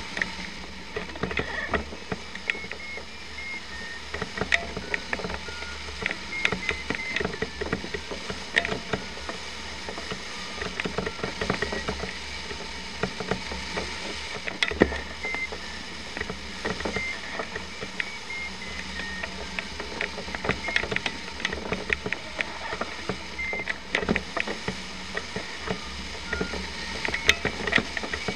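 Short single beeps from a flight variometer, jumping between a few pitches, over a steady low rush of wind with frequent sharp clicks and rattles throughout.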